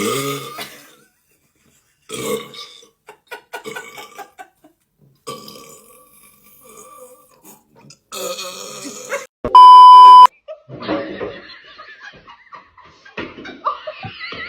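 A string of loud burps from people who have just gulped Sprite, each one a separate short burst. About ten seconds in, a loud one-tone bleep cuts in briefly.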